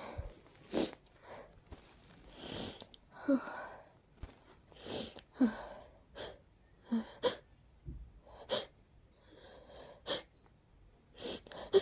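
A person sneezing over and over in a fit: about ten short, sharp sneezes, some voiced, a second or so apart, with breaths drawn in between. The sneezing comes from allergies and a cold.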